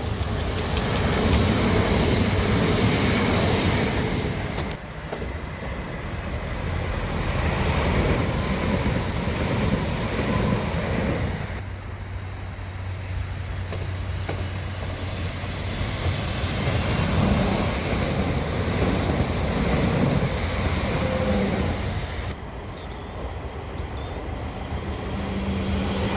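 Trains running past on the railway: a steady rumble and rush of wheels on rail. The sound changes abruptly three times, where separate clips are joined.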